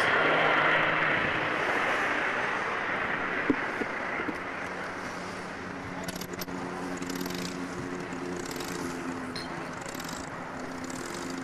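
Jet aircraft flying past low, its engine roar and whine falling in pitch and fading as it flies away. A low steady drone carries on underneath in the second half, with a few faint clicks.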